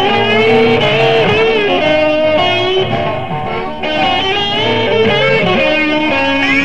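Live electric blues band: an electric guitar plays a lead line full of bent, gliding notes over a walking bass.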